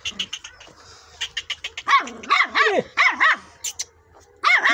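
Puppy yapping: a run of about five short, high barks starting about two seconds in, then more near the end. A few light clicks come before the barks.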